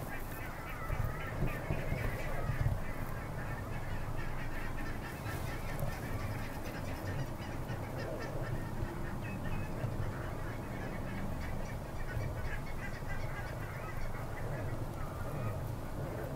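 A flock of geese honking and chattering, with many short calls overlapping continuously, over a steady low rumble.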